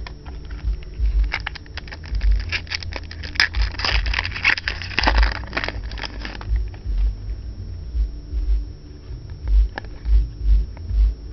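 Trading cards and a foil pack wrapper being handled: crackling crinkles, densest from about a second and a half to six and a half seconds in, then sparser, with low handling bumps throughout.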